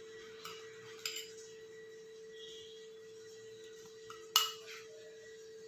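Steel spoon clinking and scraping against a glass tumbler as crushed biscuit crumbs are spooned in: a few light clicks about a second in, then one sharp ringing clink near the end, over a faint steady hum.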